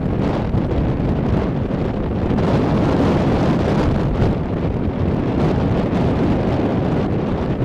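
Wind buffeting the microphone: a steady, loud, low rumbling noise.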